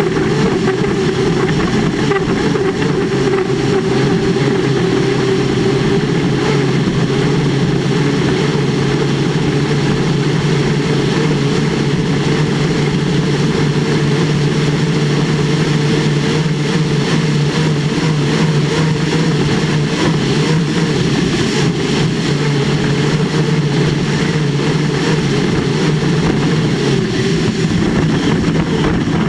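Turbine engine of an unlimited hydroplane running steadily at racing speed, heard onboard over the rush of wind and water.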